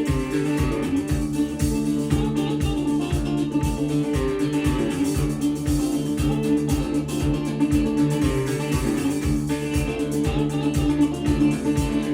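Instrumental passage of a song: plucked guitar over a steady bass beat, played back as a hi-fi speaker sound test.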